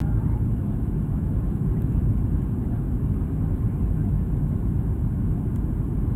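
Steady low rumble inside a jet airliner's cabin during the descent to land, the plane's engine and airflow noise heard through the cabin.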